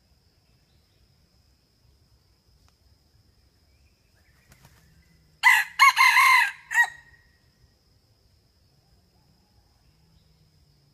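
Red junglefowl rooster crowing once, about halfway through: a short clipped crow of about a second and a half, broken into a brief opening note, a longer middle and a short final note.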